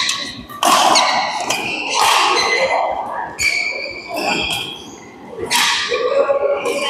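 Badminton doubles play in a large hall: sharp racket strikes on the shuttlecock and the short squeaks of shoes on the court.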